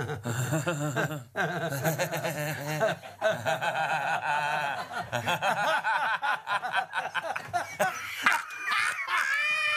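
Several people laughing heartily together in a long, unbroken bout of laughter-yoga laughter pushed from the belly, which has become real, contagious laughter.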